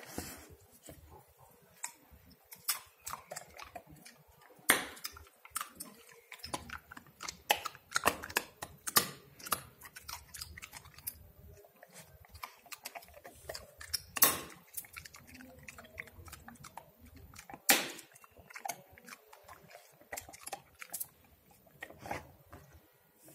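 German Shepherd chewing and crunching on a bone, an irregular run of sharp crunches with a few much louder cracks: about five, fourteen and eighteen seconds in.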